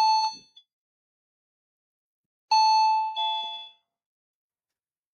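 Wireless battery-powered doorbell's indoor chime unit sounding when the outdoor push button is pressed. A brief electronic chime at the start, then about two and a half seconds in a two-note ding-dong, the first note higher, the second lower.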